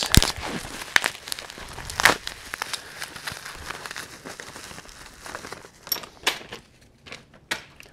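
Plastic bubble wrap being crinkled and pulled open by hand, busiest in the first couple of seconds, then fainter, with a few sharp clicks near the end.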